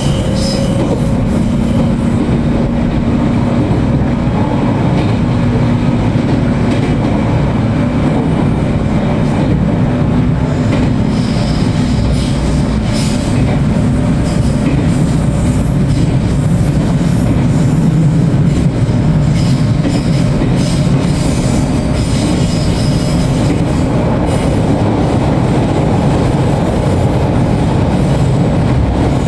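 Running noise inside a 413 series electric multiple unit motor car: a steady loud rumble of wheels on rail and the traction equipment under the floor. Now and then there are brief high-pitched wheel squeals.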